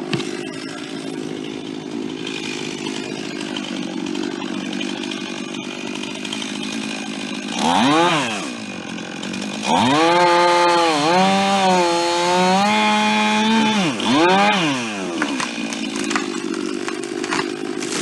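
Chainsaw idling, blipped up to high revs and back about eight seconds in. It is then held at high revs for about four seconds with its pitch sagging and wavering, as when the chain is in a cut. It gives another quick rev and drops back to idle.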